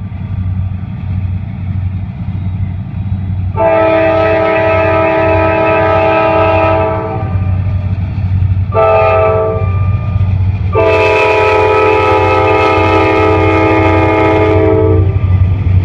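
A CSX diesel locomotive's multi-tone air horn sounds three blasts (long, short, long) over the steady low rumble of the locomotive's engine.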